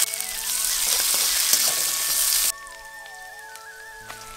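Sliced red onions sizzling loudly in hot oil with cumin seeds in a wok, just after going in. The sizzle cuts off abruptly about two and a half seconds in, leaving soft background flute music.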